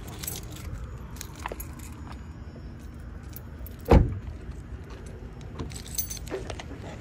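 Steady low rumble of a car's interior with keys jingling and small clicks throughout, and one loud thump about four seconds in.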